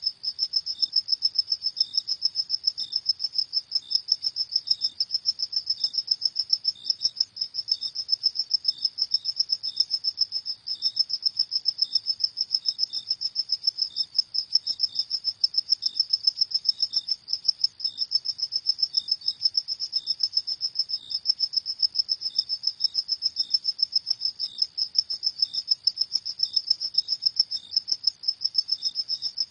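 Crickets chirping at night: a steady, rapidly pulsing high-pitched trill, with a second, fainter and lower chirping repeating underneath.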